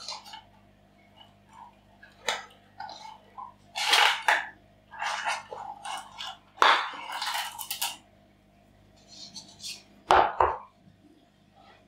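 Artificial plastic plant foliage rustling and crackling as it is handled, in irregular short bursts. Near the end comes a knock as its plastic pot is set down on the table.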